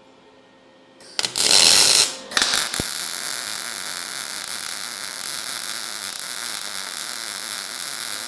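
Lincoln 180 MIG welder arc on thin sheet steel, running 0.035-inch wire with 75% argon / 25% CO2 shielding gas. A short loud burst of arc about a second in, a brief break, then a steady crackling, frying arc as a weld is run.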